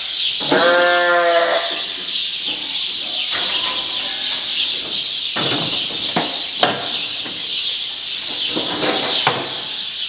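Sheep bleating in a galvanized sheep handling chute: one long, loud bleat about half a second in, then fainter bleats. Several sharp metal knocks from the chute come around the middle and near the end, over a steady high hiss.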